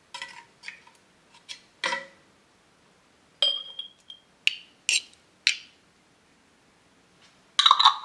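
Kitchen utensils and dishes clinking and tapping against glass and ceramic, about ten separate strikes, one ringing briefly with a clear tone about three and a half seconds in. A louder cluster of clatter comes near the end.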